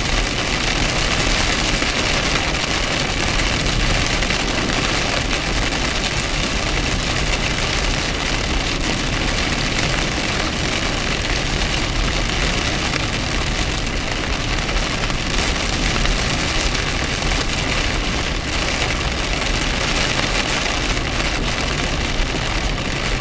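Steady noise inside a car driving on a wet highway in a rainstorm: rain on the windshield and body mixed with tyre and engine noise, unbroken and even.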